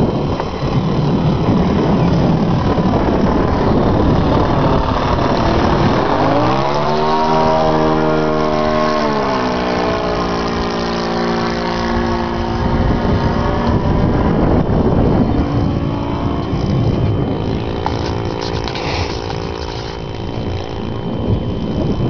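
Saito .91 four-stroke glow engine of a Twist 60 radio-control plane running in flight. Its note rises and then drops in pitch as the plane passes, about nine seconds in, and it is heard faintly again later. Wind rumbles on the microphone at the start and the end.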